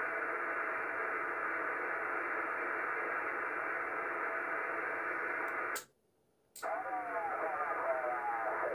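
Yaesu FT-450D transceiver's speaker giving steady band hiss while receiving on 27.555 MHz. About six seconds in, the noise cuts out with a click for under a second, clicks back, and a faint, wavering distant voice starts to come through the hiss.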